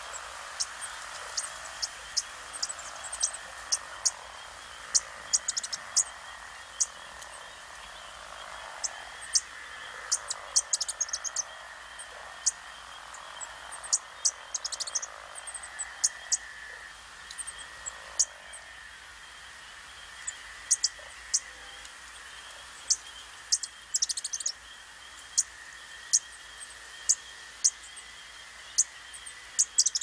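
Wetland wildlife chorus: a steady hazy background chorus with many short, sharp, very high-pitched chirps scattered irregularly throughout, some coming in quick clusters.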